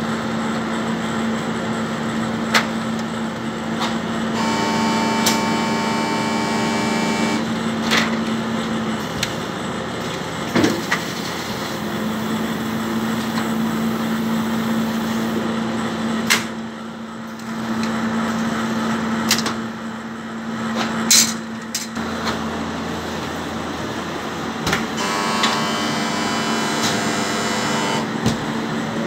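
Shinohara 52 offset printing press humming steadily while a printing plate is mounted, with scattered clicks and metal knocks of the plate and guards. A higher whine from the press comes in twice for a few seconds, about four seconds in and near the end.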